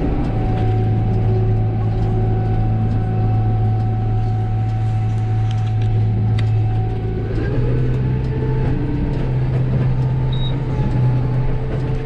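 Kubota M135GX tractor's diesel engine running steadily under way, its pitch stepping up slightly about seven and a half seconds in as the engine speeds up.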